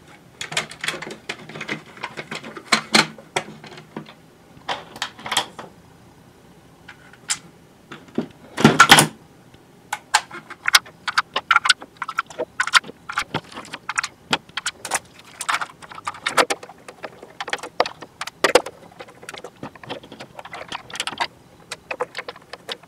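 Hard plastic toy-game parts being handled and fitted together: a string of sharp clicks, taps and small rattles, with one louder clunk about nine seconds in.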